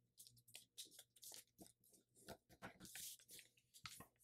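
Faint crinkling of a thin sheet of paper being folded and creased by hand: an irregular scatter of small crackles and soft taps.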